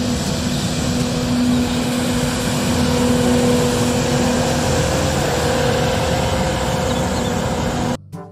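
Street sweeper truck running as it sweeps the road, a steady mechanical din of engine and sweeping gear with a steady hum. One part of the hum fades about halfway through, and the sound cuts off suddenly near the end.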